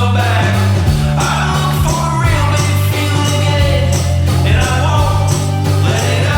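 Background pop-rock music with a steady drum beat and a sustained bass line.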